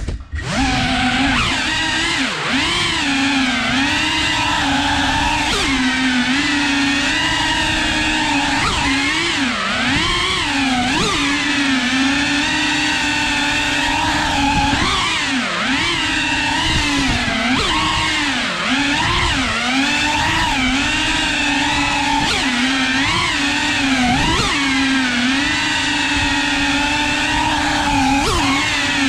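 Cinewhoop FPV quadcopter's brushless motors and ducted propellers whining, heard close up from the onboard camera. The pitch swoops up and down continually as the throttle is worked through tight turns.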